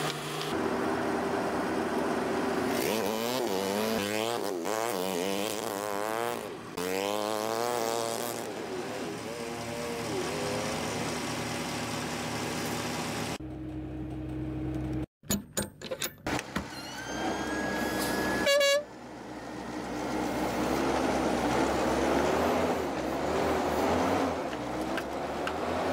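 Diesel semi-truck pulling a long trailer drives across a gravel lot, its engine pitch rising and falling as it pulls away and accelerates. About halfway through the sound breaks off, and there are a few sharp clacks and a short high-pitched tone. Then the engine and the rumble of tyres on gravel return.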